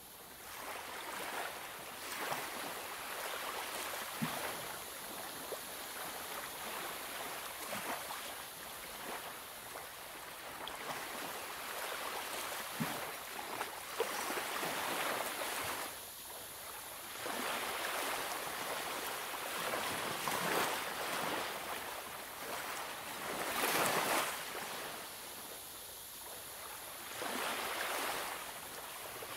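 Colouring strokes on paper: a colouring tool's tip scratching and swishing across the page in repeated swells of strokes, with a few light clicks.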